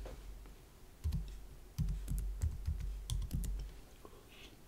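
Typing on a computer keyboard: a quick run of keystrokes starting about a second in and lasting about two and a half seconds.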